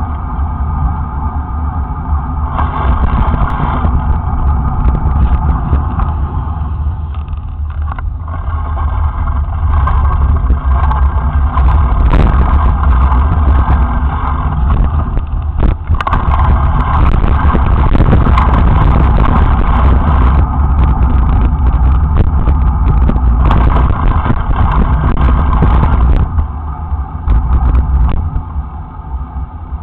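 Deep, steady wind and road rumble on an action camera's built-in microphone while it rides through city traffic, with scattered sharp knocks from the mount shaking.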